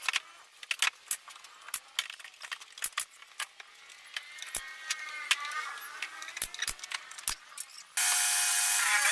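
Irregular sharp clicks and a few dull knocks as plywood cabinet panels are handled, with faint voices in the background. Background music comes in about eight seconds in.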